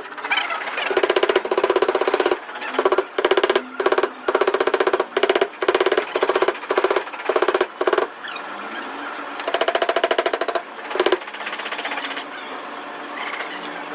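A power tool in a body shop, buzzing with a rapid rattle in repeated short bursts as its trigger is pulled again and again, with a longer run about ten seconds in.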